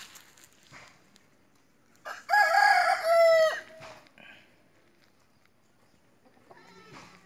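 A rooster crowing once, loud, for about a second and a half starting about two seconds in, the call ending on a falling note. A fainter call follows near the end.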